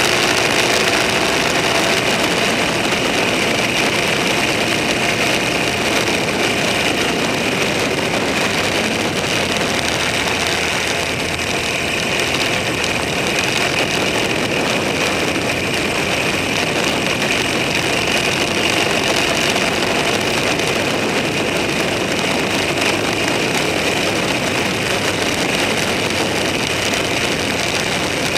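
A vehicle engine running steadily under a constant wash of noise, with no change in pace.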